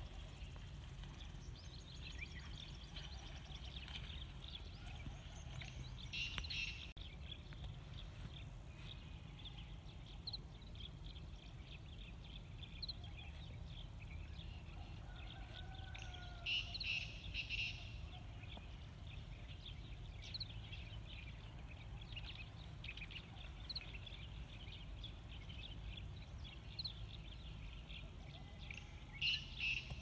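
Birdsong: a male black francolin repeats its short song phrase of several notes three times, about ten seconds apart, over scattered small chirps of other birds and a steady low background rumble.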